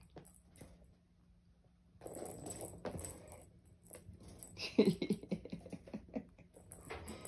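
Kittens' paws pattering and scuffling on carpet and tile as they chase and wrestle. There is a lull about a second in, then a quick run of louder thumps and scuffles about five seconds in.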